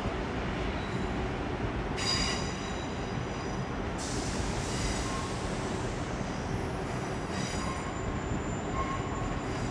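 Passenger train running, with a steady rumble and high-pitched wheel squeal that sets in about two seconds in and again in the second half.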